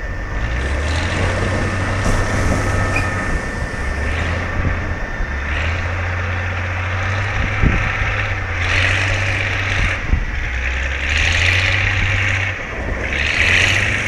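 Surf breaking on a sandy beach, with swells of hiss as waves crash about every two to three seconds in the second half, over a low rumble of wind on the microphone.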